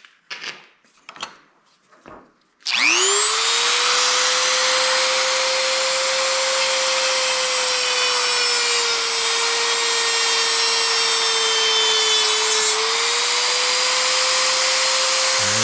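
A few light handling clicks, then a high-speed rotary tool starts about two and a half seconds in, whines up to speed and runs steadily, grinding off the excess closed coils of a music-wire spring. Its pitch sags slightly under load near the end, then recovers.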